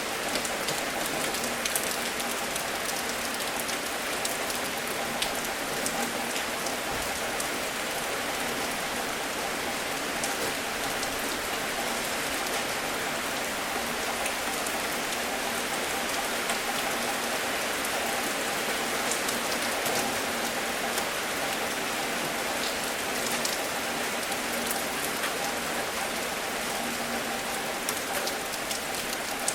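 Steady rain falling on a surface, with a constant hiss and many small drop ticks and patters.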